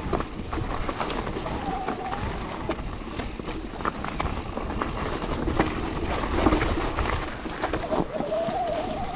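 Electric mountain bike ridden fast over a dirt forest trail: tyres rolling over loose dirt with constant rumble and the bike rattling and knocking over bumps. A wavering motor whine rises and falls about two seconds in and again near the end.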